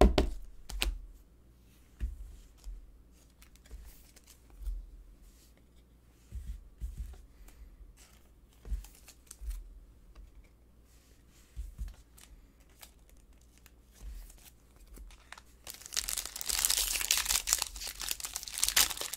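Scattered soft knocks and clicks of trading cards and hands on a tabletop as the cards are sorted. Near the end, the loudest sound: the foil wrapper of a Panini Prizm basketball pack crinkling as it is torn open.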